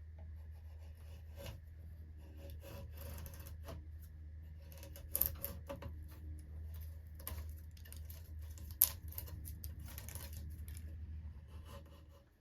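Hand tools working wood: irregular scraping and rubbing strokes, with two sharp knocks about five and nine seconds in, over a steady low hum.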